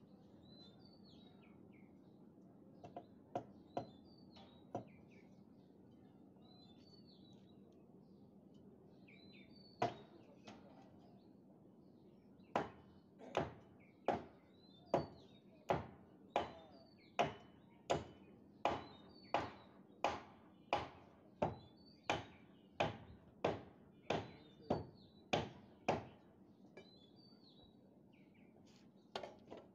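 Hammer blows: a few scattered knocks, then a run of about twenty evenly spaced strikes, about three every two seconds, lasting around fourteen seconds. Birds chirp faintly in the background.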